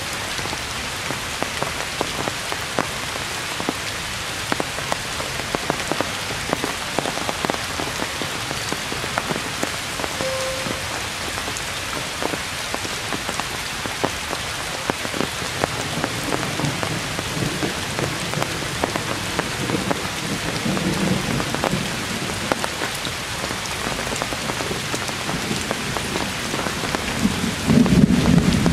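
Heavy rain falling steadily on tree foliage, a dense hiss full of separate drop hits. A low rumble swells in the second half and is loudest near the end.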